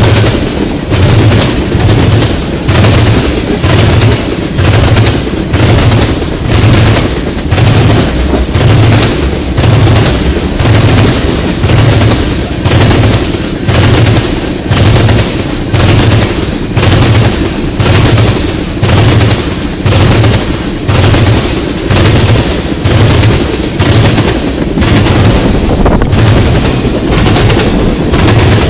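Freight cars of a long CN manifest train passing at speed, their steel wheels clattering over the track in a loud, regular beat about once a second over a continuous rolling rumble.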